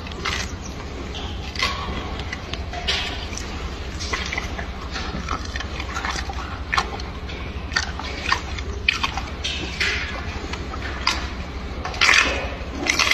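Wet, irregular chewing and lip-smacking of an ape eating a banana, in short sharp smacks every second or so, over a steady low hum.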